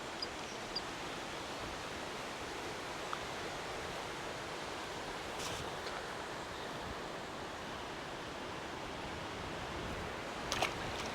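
Steady rushing noise of flowing river water, with a few faint clicks and ticks over it, including a pair near the end.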